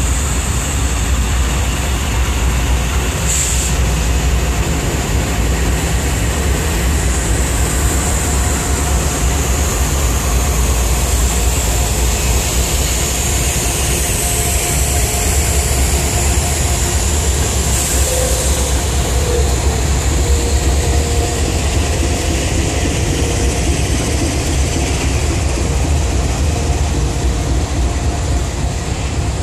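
Freight train passing close by: the trailing diesel locomotives rumble past, then a string of autorack cars rolls by with steady wheel-on-rail noise. A steady high-pitched whine runs over the rumble.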